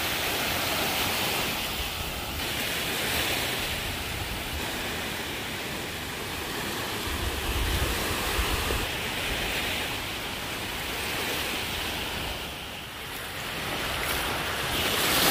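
Small waves breaking and washing up on a sandy shore, the surf swelling every few seconds, with wind buffeting the microphone.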